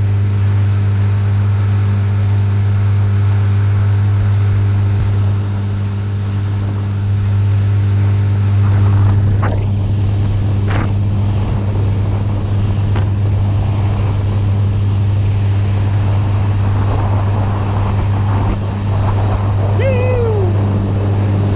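Outboard motor running steadily at cruising speed, pushing a small flat-bottom boat, with wind and water rush over it. A few short knocks come about ten seconds in.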